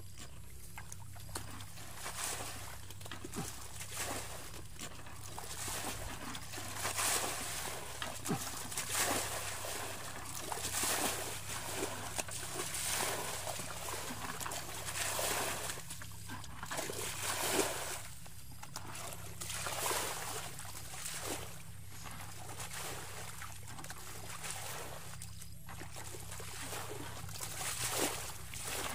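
Water sloshing and splashing in repeated surges about every two seconds, over a steady low hum.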